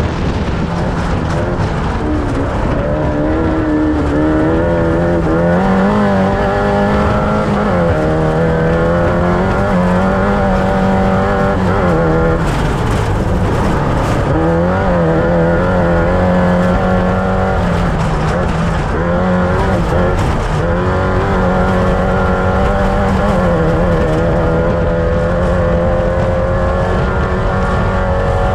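Off-road race vehicle's engine running hard and steadily loud, its pitch rising and falling with the throttle, with a deeper drop and climb back about halfway through.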